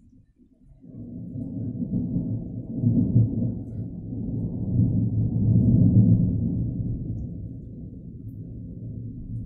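Rolling thunder: a low rumble that starts suddenly about a second in, swells twice and slowly dies away.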